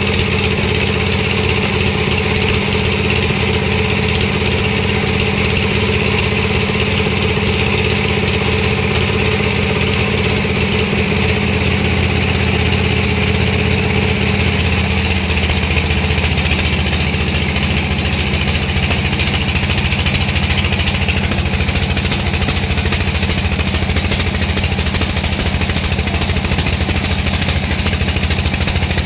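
Sawmill machinery running steadily, a loud engine-like drone with hiss above it; its pitch drops a little about halfway through.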